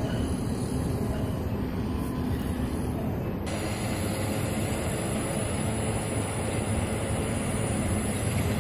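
Steady low rumble of heavy mining machinery: large walking draglines at work.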